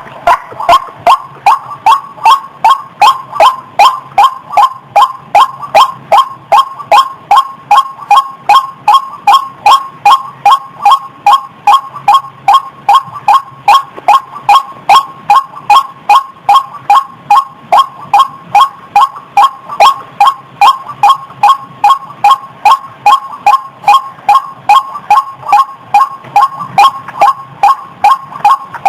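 Female white-breasted waterhen calling, a loud steady run of short, sharp 'wak' notes repeated about two to three times a second.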